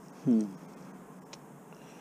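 A man's short wordless vocal sound about a quarter second in, rising in pitch, followed by a faint click.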